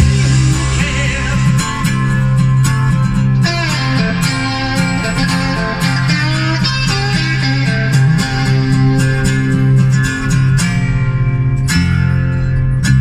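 Guitar-led music with a strong bass line played through a BMW M6 Gran Coupe's Bang & Olufsen sound system, fitted with Focal mids and tweeters in the front doors, heard inside the cabin through a phone's microphone.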